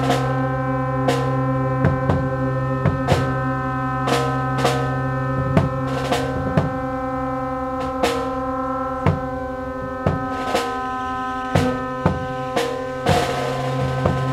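Brass and wind ensemble holding long, steady chord tones over a low tuba-range drone, with drum and snare strikes about once a second and a louder stroke near the end.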